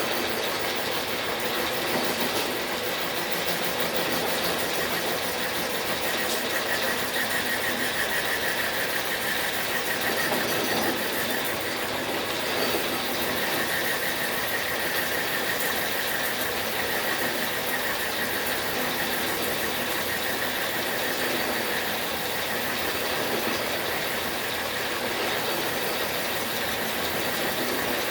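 Logan metal lathe running steadily during thread-cutting passes, its gears and drive making a continuous mechanical clatter, with a faint high squeal coming and going.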